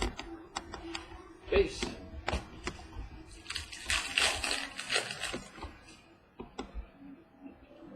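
Trading cards being handled and flipped through one by one: a string of light clicks and taps, with a louder rustle of card or wrapper between about three and a half and five seconds in.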